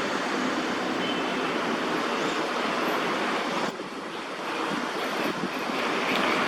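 Steady hiss of distant city traffic, with no clear single event; it dips briefly a little past halfway.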